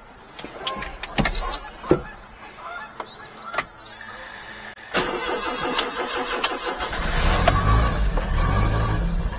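A few sharp clicks in the cab, then about five seconds in the starter of a 1992 Daihatsu Hijet's three-cylinder engine cranks, and the engine catches about two seconds later and keeps running steadily. The fuel was primed first with a primer button, so it fires after only a short crank.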